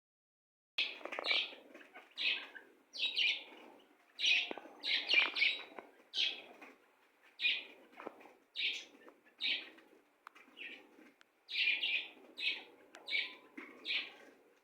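Bird chirping: a steady series of short, high calls, about one a second, starting just under a second in.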